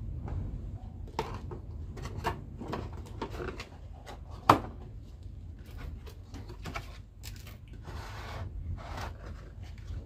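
Cardboard product box being opened and handled: a string of rustles, scrapes and light taps as the flaps and inner cardboard insert are worked, with one sharp knock about four and a half seconds in.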